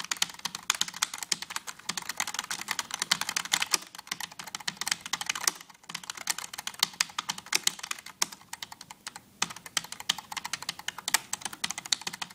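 Keys of a cheap generic ten-keyless USB keyboard being pressed rapidly in a dense run of plastic clicks, with short pauses about six and nine seconds in.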